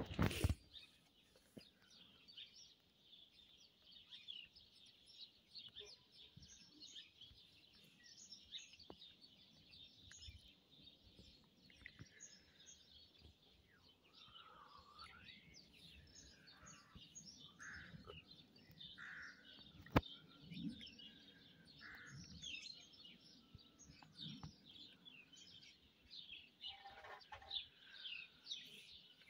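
Faint chorus of many small birds chirping and twittering, with some lower, sliding calls in the middle. A loud bump at the very start and a single sharp click about two-thirds through.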